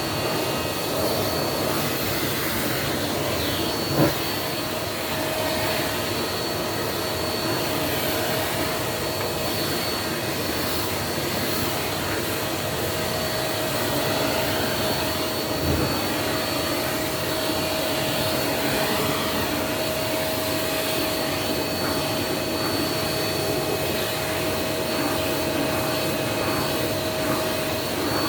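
Vacuum cleaner running with a steady whine, with a short knock about four seconds in and a dull thump a little past halfway.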